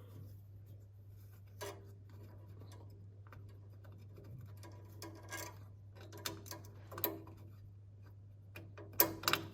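Small metal clicks and light scrapes of a bolt and spacer being worked by hand into a differential cover, a few scattered taps with a sharper cluster near the end, over a steady low hum.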